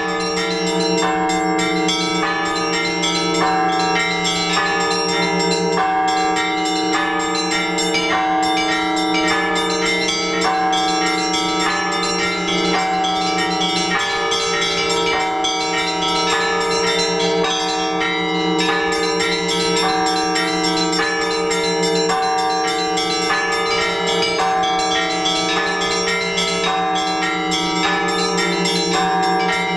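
Orthodox church bells rung together in a trezvon. The small bells chime rapidly in a steady repeating pattern over the lingering hum of the larger bells.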